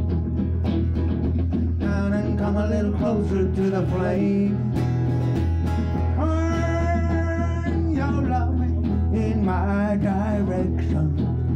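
Live band music: strummed acoustic guitar and accordion over a steady low bass, with a long held note about halfway through.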